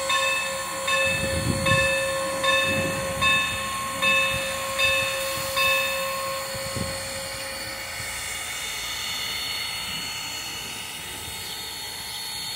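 Norfolk & Western #475 steam locomotive standing at its train, hissing steam steadily. For the first six seconds a metallic ringing repeats about every 0.8 s, then only the hiss goes on.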